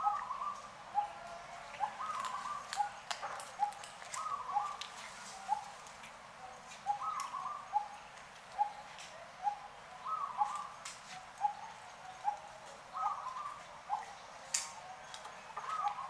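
Animal calls: short chirps repeated about twice a second, with a longer, higher call every few seconds, and scattered sharp clicks.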